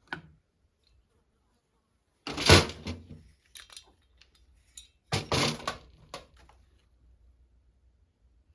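Two clattering knocks about three seconds apart, each trailed by a few lighter clicks, like tools or parts being picked up and set down on a workbench.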